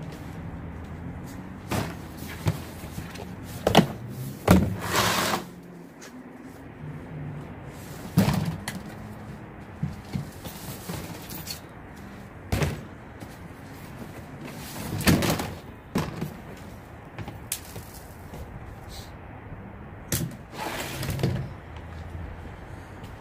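Scattered knocks and thumps with rustling as things are moved about and set down, the loudest bangs coming about four seconds in, over a faint low hum.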